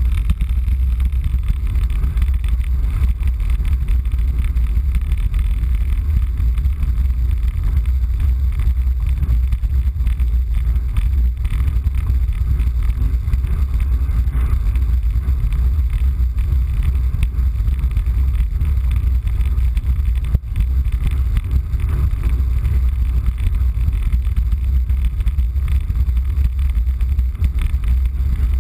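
Wind buffeting a camera microphone on a fast road-bike descent: a loud, steady low rumble, with a fainter hiss above it.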